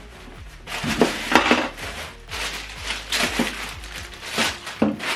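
Packaging rustling and crinkling in irregular handfuls, with a few light knocks, as a soundbar and its subwoofer are unpacked and handled.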